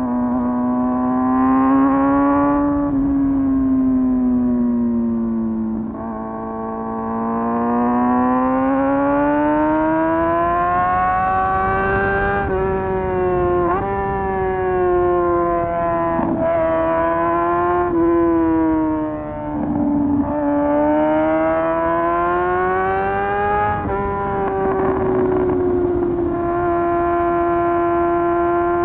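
Motorcycle engine running under way, its pitch rising and falling repeatedly, with short breaks where the pitch jumps as it shifts gears. It settles into a steady cruise near the end.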